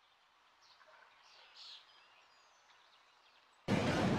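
Faint birdsong: a few short chirps and sweeping whistles. About three and a half seconds in it cuts suddenly to loud, steady supermarket background noise with a low hum.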